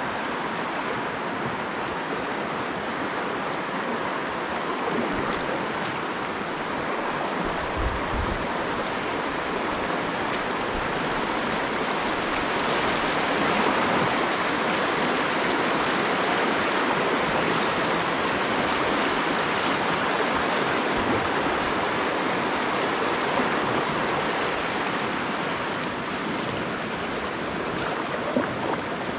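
Shallow river rapids rushing steadily around a kayak. The sound grows louder from about twelve to twenty seconds in, as the boat runs the whitewater among the rocks, then eases off. There is a short low thump about eight seconds in and a brief knock near the end.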